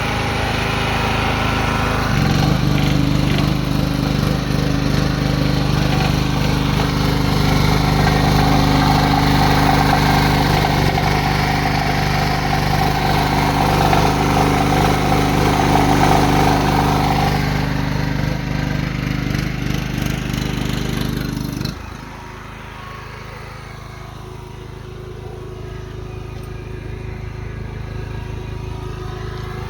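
3 kW petrol generator engine running steadily under the load of arc welding, with the hiss and crackle of the arc over it. About 22 seconds in, the arc stops: the sound drops sharply and the engine runs on lighter.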